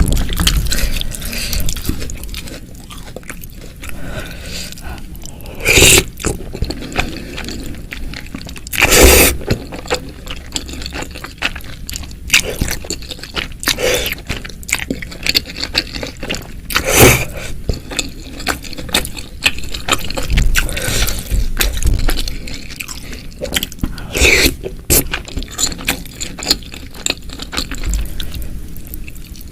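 Close-miked eating of spicy meatball soup: a utensil scraping the bowl, wet slurps of broth and chewing, with a few louder slurps or bites spread through.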